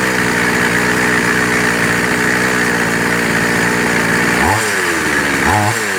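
A 5200 chainsaw's 52 cc two-stroke engine idling steadily, then blipped twice near the end, revs rising and dropping back each time. It runs loud, a fault whose cause has not yet been found.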